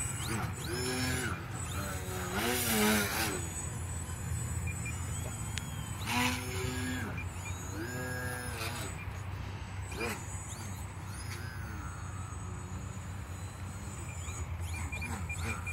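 Brushless electric motor and 9x4.1 propeller of a small foam RC aerobatic plane, revving up and down in several short throttle bursts with the pitch rising and falling, the loudest about two and a half seconds in. A steady low rumble runs underneath.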